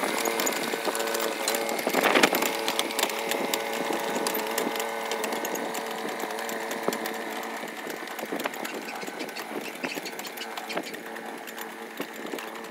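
B12 mini excavator's diesel engine running steadily while it travels on its crawler tracks, with a light clanking rattle from the tracks; the sound slowly fades as the machine moves away.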